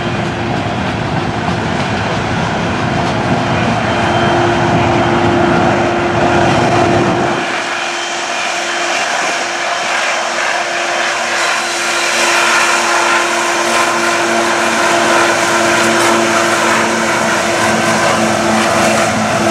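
GE ET44AC locomotive working as a mid-train distributed-power unit, its GEVO V12 diesel running hard under heavy load: the train is struggling up the grade. A steady drone with a held tone, and a second, lower tone joining about eleven seconds in as the unit draws closer.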